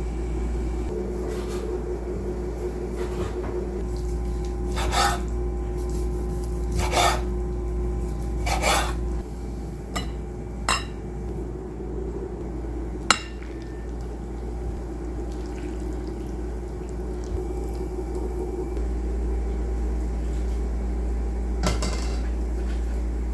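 Dishes and utensils clinking and knocking several times, with one sharper clink about halfway through, over a steady low hum.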